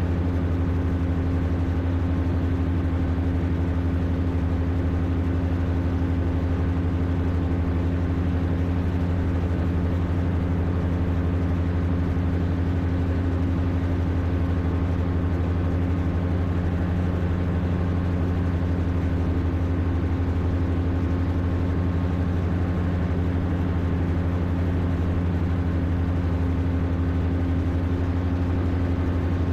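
Rotax 582 two-stroke twin engine of an X'Air Standard microlight running steadily at cruise power, a constant drone that holds one pitch throughout.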